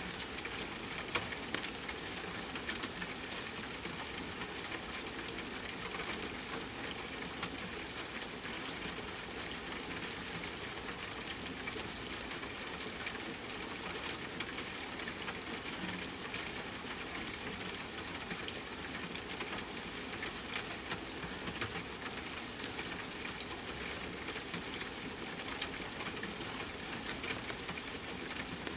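Steady rain mixed with a fireplace crackling: an even rushing hiss with many small, sharp pops throughout, and a few louder pops in the second half.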